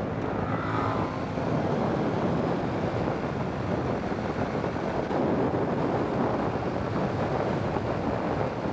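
Wind rushing over the microphone of a Kawasaki Z650 at steady road speed, with the motorcycle's parallel-twin engine and road noise running under it.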